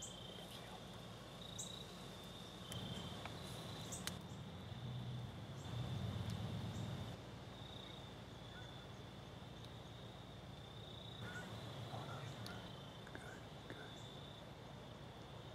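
Crickets trilling in a high, thin, steady chorus. A low rumble swells a few seconds in and fades by about seven seconds, and a few faint clicks come and go.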